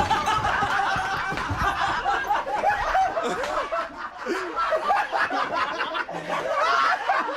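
Several people snickering and chuckling, a run of high-pitched laughter with no break.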